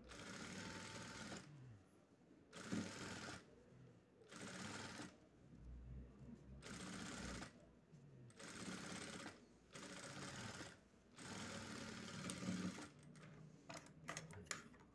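Sewing machine stitching in short runs of about a second each, stopping and starting repeatedly as a ribbed elastic band is fed onto a trouser-leg hem. A few sharp clicks come near the end.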